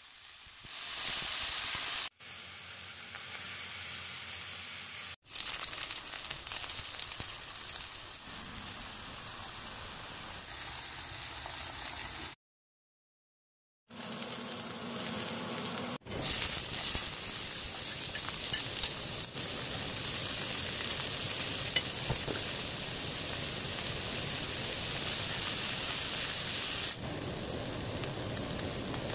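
Food frying in hot oil in a black pan: a steady sizzle from cubed meat, then potato cubes, then onions and green peppers. It comes in short edited clips that cut off abruptly, with about a second and a half of silence midway.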